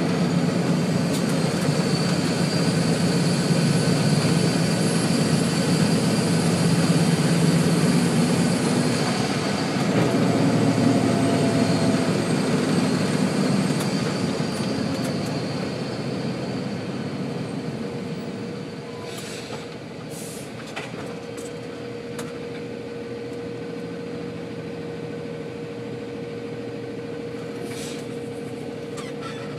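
Coal truck's diesel engine running under way, with a high whine in the first half, then slowing to a stop and idling steadily. A few short hisses come near the end, after it has slowed.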